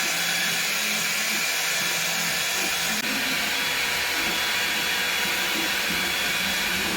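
Hair dryer fitted with a diffuser attachment running steadily, blowing air: an even rush with a faint high whine.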